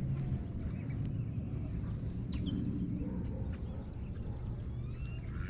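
A few short, high bird chirps and rising whistles over a steady low outdoor rumble.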